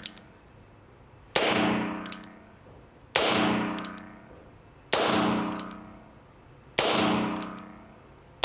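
Heritage Barkeep compact single-action .22 LR revolver fired slowly, a shot about every two seconds, five in all with the last right at the end. Each report rings out in a long echo off the range's block walls, and a small click of the hammer being thumbed back comes between shots.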